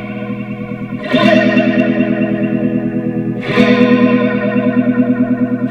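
Guitar chords ringing through a Chase Bliss Spectre through-zero flanger whose regeneration is being ramped up and down, giving a sweeping, rippling comb-filter wobble with a fast pulsing flutter. New chords are struck about a second in and again about halfway through.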